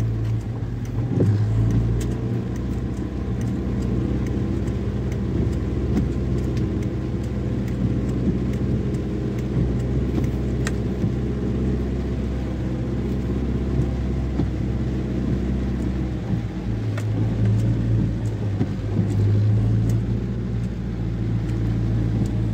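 Car engine and road noise heard from inside the cabin while driving slowly on a wet road: a steady low hum that swells a little about a second in and again near the end, with scattered light ticks from rain on the car.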